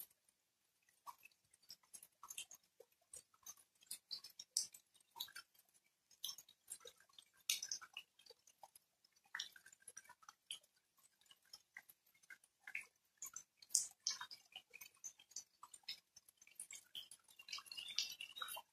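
Light rain: single raindrops landing irregularly as sharp little ticks, several a second, with no steady hiss between them; the drops come thicker near the end.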